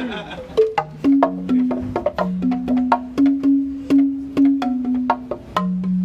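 Bamboo xylophone playing a rhythmic run of short, woody struck notes, several a second, each ringing briefly in a low register.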